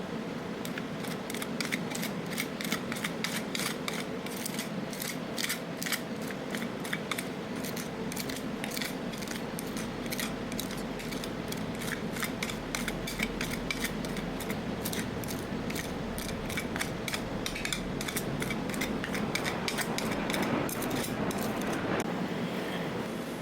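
Metal spatulas chopping and scraping on the cold steel plate of a rolled ice cream pan, with many quick, irregular metallic clicks that thin out near the end, over a steady low hum.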